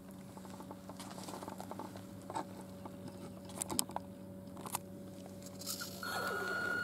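Axial Wraith RC crawler's tyres crunching and crackling over loose dirt and small stones, with scattered sharp clicks. About six seconds in, its electric motor's high whine comes in and grows louder as the truck drives close.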